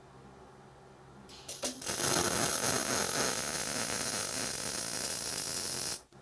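MIG welding arc on solid (hard) wire putting a tack weld on steel pipe. It catches with a couple of brief sputters about a second and a half in, runs steadily for about four seconds, then cuts off suddenly as the trigger is released.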